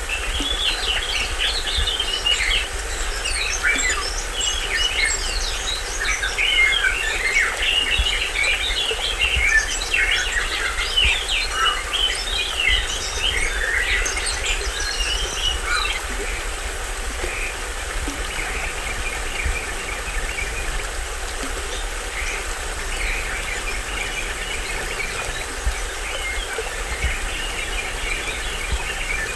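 Many tropical forest birds chirping and calling over the steady rush of a small stream waterfall. The chirping is dense for the first half, then thins out to sparser calls about halfway through.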